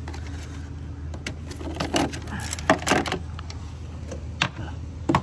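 Scattered clicks and knocks of the jet ski's plastic hull panels and compartment being handled, mostly between about one and three seconds in, over a steady low hum.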